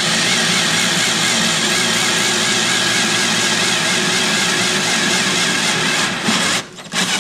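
Power drill running steadily, drilling a hole through the car's sheet-metal floor pan. It stops near the end.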